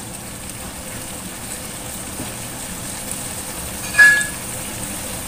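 Chili sauce and fried eggplant sizzling and bubbling steadily in a stainless steel wok. A single short metal clink with a brief ring about four seconds in.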